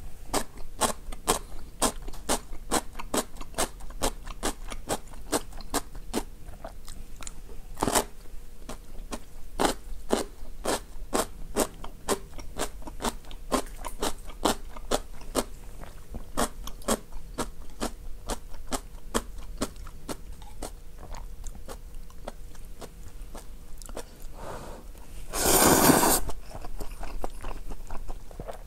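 Close-miked chewing of instant ramyun noodles: a long run of sharp, wet mouth clicks and crunches. About 25 seconds in comes a loud slurp of noodles lasting over a second.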